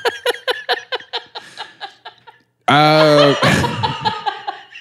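Two men laughing hard in quick runs of chuckles. About halfway through there is a brief hush, then a loud held tone for under a second, followed by more laughter.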